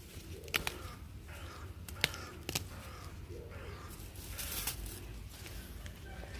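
Bean pods being picked by hand off the vine: a few sharp snaps as the stems break, with leaves rustling. A plastic bag crinkles briefly about four seconds in.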